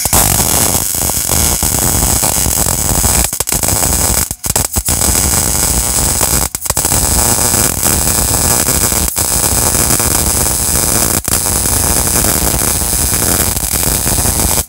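MIG welder arc running a continuous bead on the steel frame of a Toyota Tundra, welding the power steering rack bracket back on. The arc drops out for a few brief breaks, most of them around four to seven seconds in.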